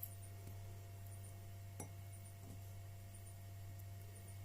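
Quiet room tone with a steady low electrical hum and one faint click about two seconds in.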